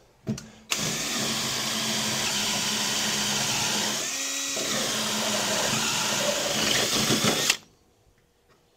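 Power drill running a step bit through thick steel, enlarging a pilot hole. About seven seconds of steady cutting, which eases briefly about halfway and then stops.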